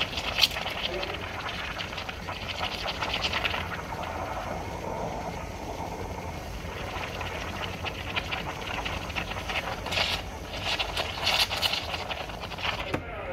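Espresso machine steam wand hissing and sputtering as it froths milk in a paper cup, the steam cutting off sharply near the end.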